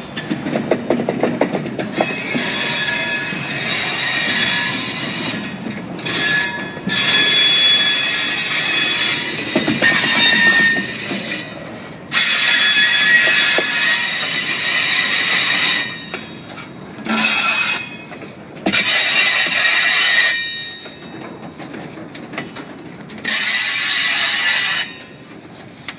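Loaded freight cars rolling slowly past, their steel wheels squealing against the rail in loud high-pitched bouts of a few seconds each, about six times. Between the squeals the wheels rumble and clank over the track.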